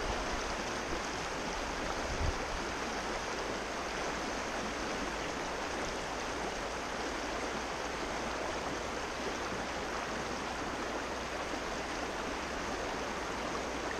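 River water rushing steadily over rocks in a mountain tailwater: an even, unbroken rush. A single short low thump sounds about two seconds in.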